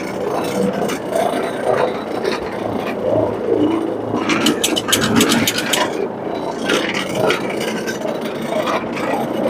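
Carpet-cleaning extraction wand running with a steady vacuum drone, its hiss surging a few times as it is worked back and forth over the carpet.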